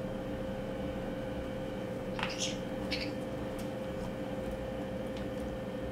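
Caique parrot rummaging in a nylon backpack pocket: two brief scratchy rustles a little over two seconds in and a few faint clicks, over a steady background hum.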